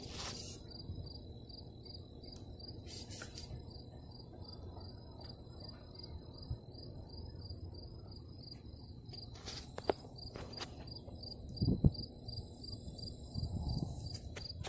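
A cricket chirping steadily, about two to three short, high chirps a second, over a faint low rumble. A sharp click comes about ten seconds in, and a louder dull knock follows a couple of seconds later.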